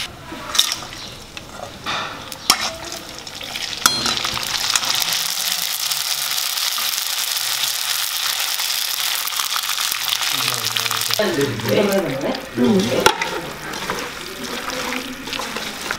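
Battered food deep-frying in hot oil in a steel wok: a steady, dense sizzle. About eleven seconds in it gives way to quieter, irregular handling sounds.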